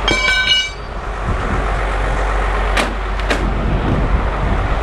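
Steady mechanical noise with a low hum. A brief high-pitched squeal comes right at the start, and two sharp clicks follow about halfway through.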